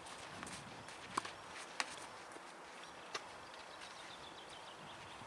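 Tennis ball struck by rackets during a serve and rally: three sharp, faint pops spread over about two seconds.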